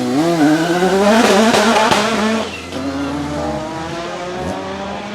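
Renault 5 Maxi Turbo SuperProduction's turbocharged 1.4-litre four-cylinder race engine revving up and down, then accelerating hard with rising pitch. About two and a half seconds in the revs drop sharply and it runs on at a steadier, lower pitch.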